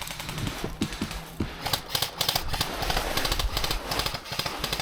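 Airsoft guns firing, a rapid string of sharp clicking shots.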